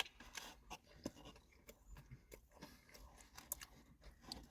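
Faint chewing and small mouth clicks of a person eating, scattered irregularly.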